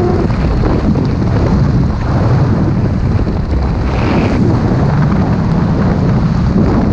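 Wind blowing across a helmet camera's microphone during parachute canopy flight: a loud, steady, rumbling rush.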